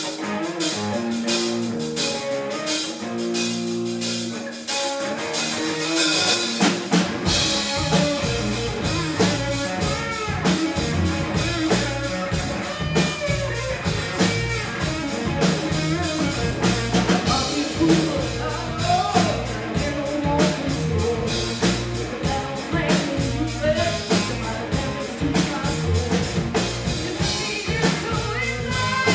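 Live rock band playing. Guitar plays alone for the first few seconds, then drums, with a cymbal crash, and bass guitar come in about six seconds in, and the full band plays on with a singer.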